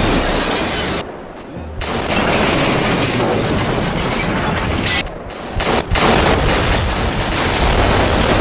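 Train crash sound effect: a loud, dense run of booms and rapid crashing impacts. It drops off sharply twice, about a second in and again around five seconds in.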